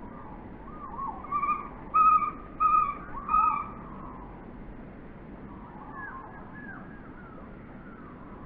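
Common kingfisher calling: a quick series of about five short whistled notes, the loudest about two seconds in, then a few fainter calls around six seconds in.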